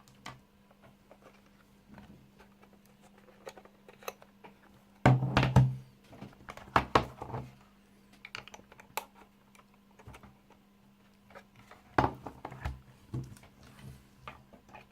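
Scattered small clicks and taps, with heavier knocks about five seconds in and again about twelve seconds in, over a faint steady electrical hum: a device and its buttons being handled.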